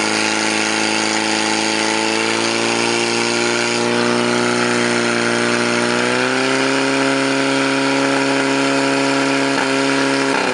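Portable fire-sport pump's engine running at high revs, a loud steady drone, driving water through the attack hoses to the nozzles; its pitch rises slightly about six seconds in.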